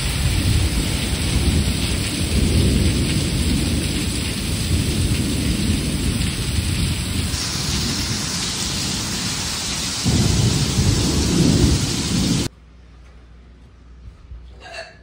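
Heavy rain pouring onto pavement in a thunderstorm, with low rolls of thunder swelling several times, the loudest about ten seconds in. The storm sound cuts off suddenly near the end, leaving quiet room tone.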